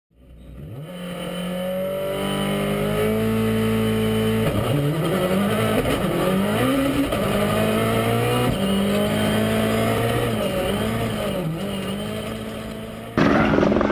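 A rally car's engine revving and accelerating, its pitch climbing and dropping several times as it changes gear; it fades in at the start. Near the end it cuts abruptly to a louder, rougher engine sound.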